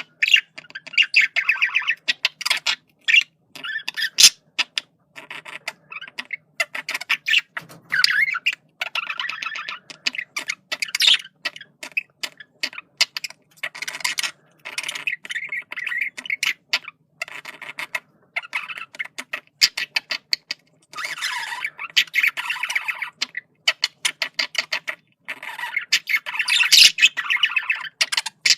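Male budgerigar warbling and chattering: a fast run of clicks, chirps and squawks broken by short pauses, with louder squawks about a third of the way in and near the end.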